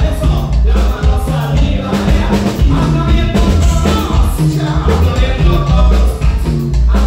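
Live band playing loud Latin dance music with a heavy bass line and a sung vocal melody.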